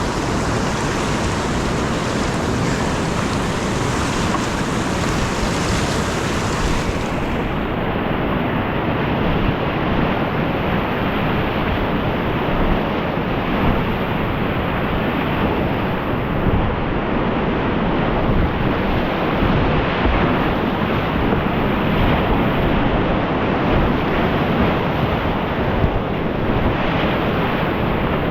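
Whitewater rapids rushing loudly and without a break around a kayak, big fast water with wind and spray buffeting the microphone. The highest part of the hiss dulls about a quarter of the way in.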